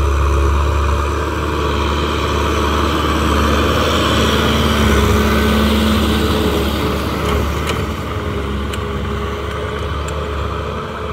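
Kubota M6040 tractor's diesel engine running steadily under load as it pulls a rotary tiller through the soil, with a few light ticks in the second half.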